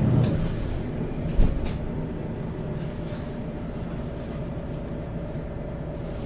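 MAN Lions City bus's diesel engine and drivetrain running steadily under way, a low drone with a faint steady whine over it. A single thump about a second and a half in.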